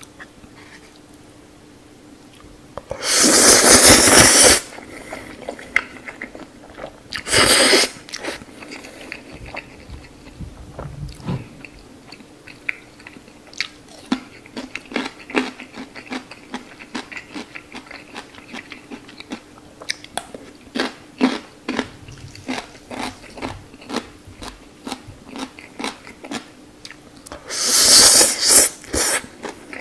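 Close-miked eating of stir-fried instant noodles: loud slurps about three seconds in, again at seven seconds, and near the end, with many short wet chewing clicks in between.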